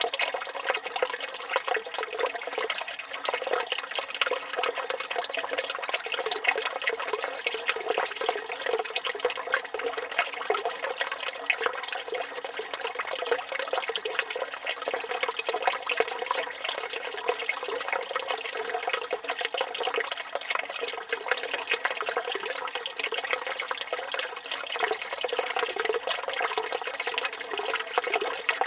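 Water from a village fountain running steadily and splashing, a continuous even rush with no change.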